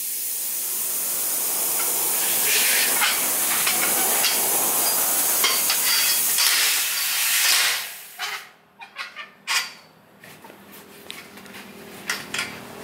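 Loud, steady hiss of air rushing out of a truck tyre as a long steel bar forces its bead away from the steel rim. The hiss stops abruptly about eight seconds in, and a few sharp knocks follow.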